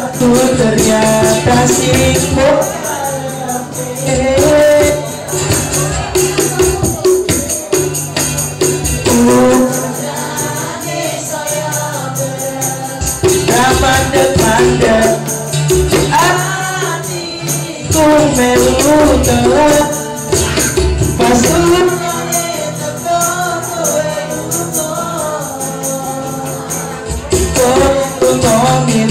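Live amplified band music: a male vocalist singing into a microphone, accompanied by acoustic guitar and hand percussion including a djembe, with a steady jingling rhythm on top.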